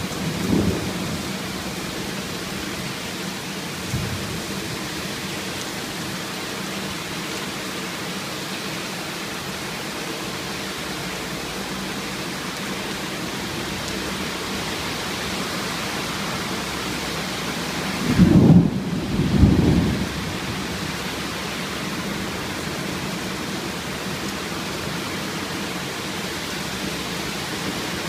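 Heavy rain falling steadily during a thunderstorm, with two loud low rumbles of thunder close together about two-thirds of the way through.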